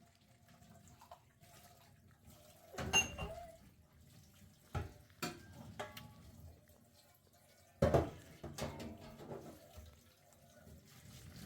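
Water splashing and running, loudest about three seconds in and again around eight seconds in.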